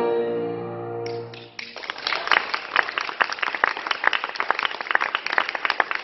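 A woman's singing voice holds a long final note over piano, ending about a second and a half in; audience applause then breaks out and continues.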